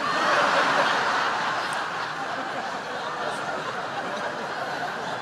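Crowd laughter, breaking out suddenly, loudest in the first second, then carrying on steadily.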